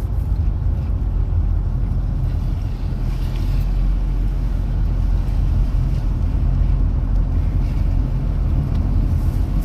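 Car driving at steady speed: a continuous low rumble of engine and tyre noise with no change in pace.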